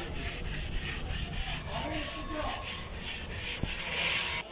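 Quick rhythmic scraping strokes, about four a second, of a spreader working body filler over a bus's body panel, stopping abruptly near the end.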